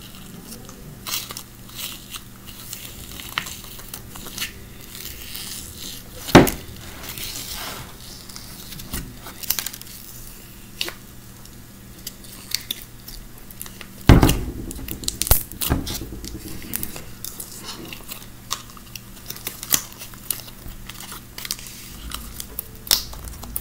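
Clear slime loaded with jelly cubes, bingsu beads and charms being mixed by hand in a plastic tub, making many small irregular clicks and crackles. Two louder knocks stand out, about six and fourteen seconds in.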